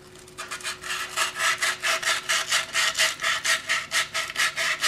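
Sandpaper rubbed by hand in quick, even back-and-forth strokes, about five a second, over a rusty metal seal seat where the brake booster's rubber seal fits, taking off the surface rust.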